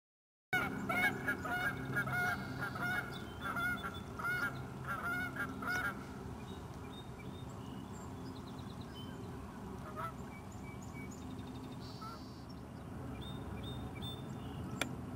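Canada geese honking, many calls in quick succession for the first several seconds. After that the calls die away, leaving a steady outdoor hiss with a few faint high calls.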